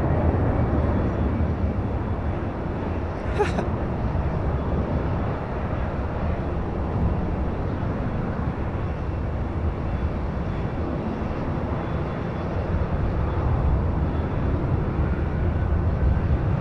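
Four jet engines of a Boeing 747-400 running at full takeoff power during the takeoff roll, a steady heavy noise with the most weight low down. There is one brief sharp click about three seconds in.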